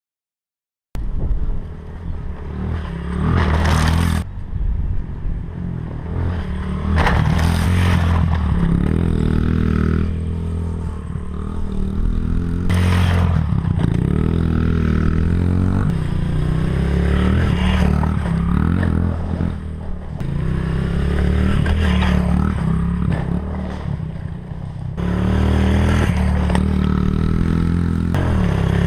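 Pit bike engine revving up and easing off over and over as it is ridden, starting about a second in. There are three brief loud swells of noise in the first half.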